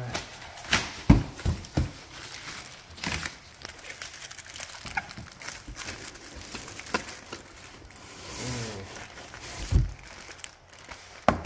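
A vacuum pump in a clear plastic bag is handled: the plastic crinkles and the cardboard box rustles. There are several sharp knocks in the first two seconds and two heavier thumps near the end as it is set down.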